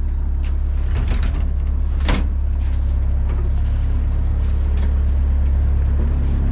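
Fishing boat's engine idling with a steady low drone, with a few knocks and clatters of boots and gear on deck, the sharpest about two seconds in.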